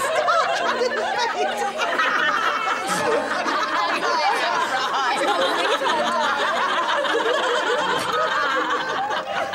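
A group of women laughing and giggling together, several voices overlapping with some chatter mixed in.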